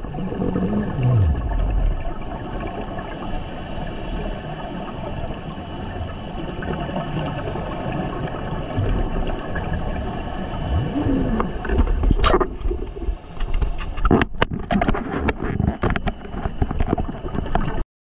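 Underwater sound of scuba divers' regulator exhaust bubbles, a dense gurgling rush, with a few clicks in the second half. It cuts off suddenly to silence just before the end.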